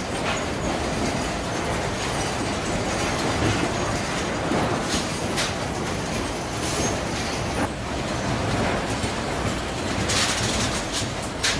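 Sawmill processing machinery running: a steady clattering rumble with occasional sharp knocks.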